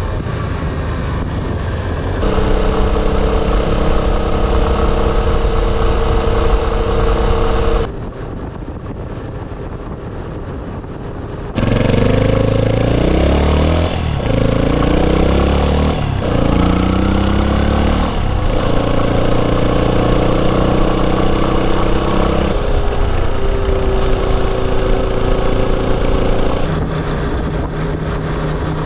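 Yamaha Serow 250's air-cooled single-cylinder engine while riding, mostly holding a steady pitch. Between about 12 and 18 seconds in, the revs rise and fall repeatedly through gear changes. The sound changes abruptly several times and is quieter for a few seconds from about eight seconds in.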